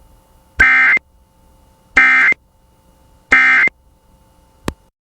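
Emergency Alert System end-of-message data tones: three short, buzzy two-tone squawks about a second and a half apart, signalling the end of the alert. A brief click follows near the end.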